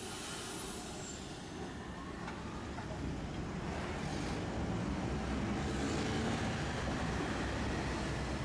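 Tosaden Kotsu streetcar running on its rails, the running noise growing steadily louder as the tram picks up speed.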